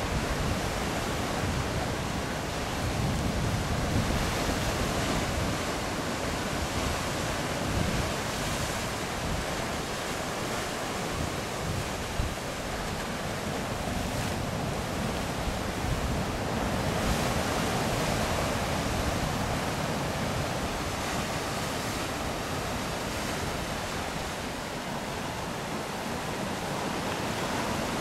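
Ocean surf washing steadily onto the shore, with wind gusting on the microphone.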